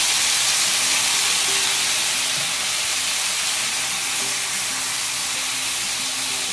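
White mushrooms frying in butter and olive oil, sizzling loudly right after a splash of white cooking wine hits the hot pan. The sizzle eases off slowly as the wine cooks off.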